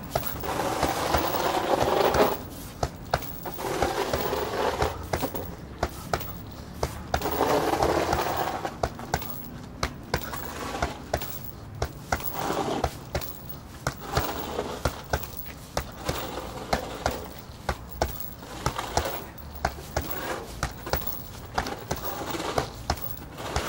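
Boxing-gloved punches landing on a hanging heavy bag in quick, uneven combinations, each a short sharp thud. In the first half a steadier mid-pitched background sound swells up a few times, as loud as the punches.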